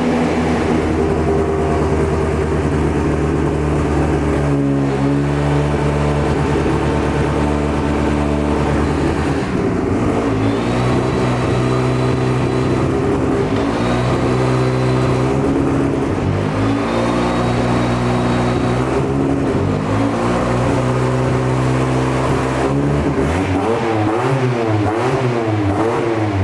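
Ford Escort Cosworth's turbocharged four-cylinder engine running loud with the car up on a ramp, wheels turning, as it is taken up through the gears. The engine note steps to a new pitch every few seconds and rises and falls in quick revs near the end. The freshly rebuilt gearbox takes all the gears and sounds right.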